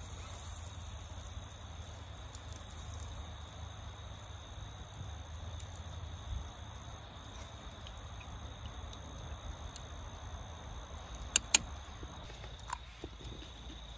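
Steady chirring of crickets and other insects, with a low rumble underneath. Near the end come two sharp clicks close together and a fainter one just after.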